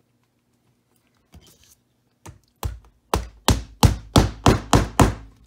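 A small hammer driving a wire brad through a thin wooden strip to tack it down to the work board: a couple of light taps about two seconds in, then about eight sharp strikes at roughly three a second.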